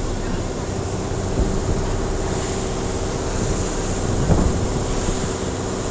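Boat engine running steadily, a constant hum with a rush of wind over it.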